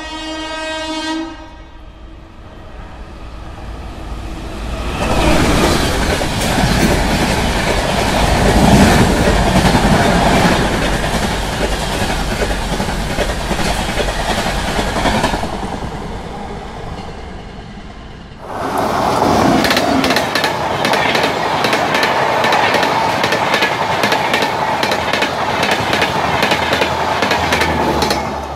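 Shatabdi Express trains passing at full speed. A horn cuts off in the first second, then one train's coaches rush past with wheels clicking over the rail joints. About two-thirds of the way in, the sound jumps abruptly to a second train passing close by with a rapid wheel clatter.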